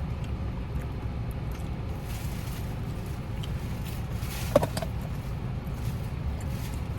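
Someone chewing crunchy fried food close to the microphone, with soft crackling crunches over a steady low outdoor rumble. A sharp click-like crunch comes about four and a half seconds in.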